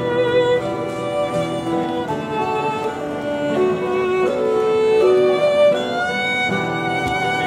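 Fiddle playing a bowed melody, moving from note to note with some notes held for about a second.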